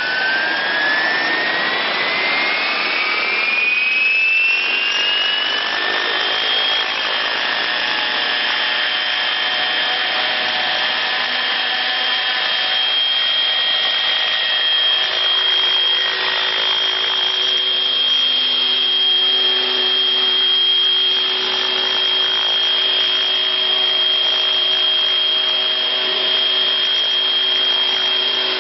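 Large radio-controlled helicopter spooling up: a whine that rises in pitch for about the first six seconds, then holds steady at full rotor speed as it lifts off and hovers. Its tail rotor is out of balance.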